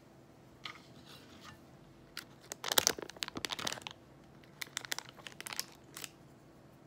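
Paper wrapper crinkling and crisp pastry crunching as a wooden spoon breaks into it: a few faint crackles, then a dense burst of crackling about two and a half seconds in, trailing off into scattered sharp crackles.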